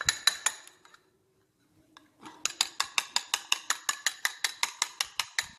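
Egg being beaten in a ceramic bowl, the utensil clicking rapidly against the bowl at about six strokes a second. It stops about a second in and starts again about two seconds in.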